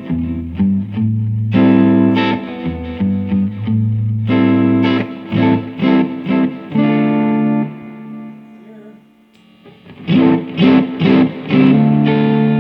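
Electric guitar, a Fender Stratocaster, played through a Bludotone guitar amp: chords struck and left to ring, a quieter stretch about eight seconds in, then a quick run of short chord stabs.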